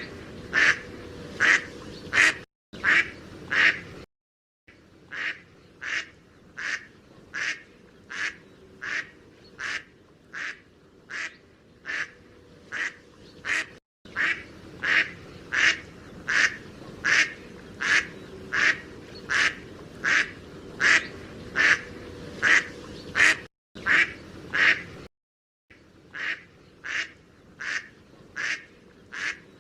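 Mallard duck quacking in a steady, even run of short quacks, about one and a half a second, broken a few times by brief sudden gaps.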